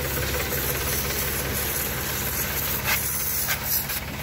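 Sonalika DI 35 three-cylinder diesel tractor idling steadily at about 700–750 rpm, powering the spray machine, under the hiss of a pressurised water jet spraying onto a motorcycle.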